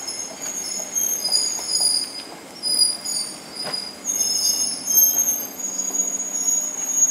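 JR 205-series electric train pulling slowly into the platform, its wheels squealing in several shifting high-pitched tones. There is a sharp click about halfway through and a low hum underneath in the second half.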